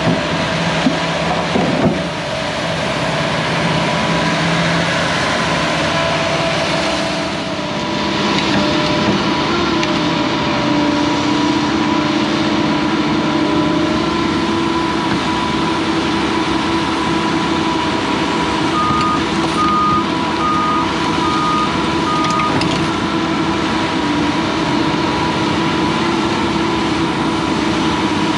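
Hyundai tracked excavator's diesel engine running steadily under work, with a steady high whine over it. A few knocks sound in the first two seconds, and a short run of evenly spaced alarm beeps comes about two-thirds of the way through.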